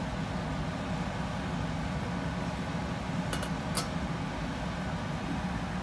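Steady low background hum, with two light clinks about half a second apart a little past halfway: a spatula tapping the frying pan.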